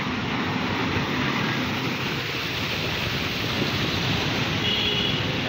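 Steady rushing street noise from traffic moving along a waterlogged road, tyres running through standing water, with a brief high tone near the end.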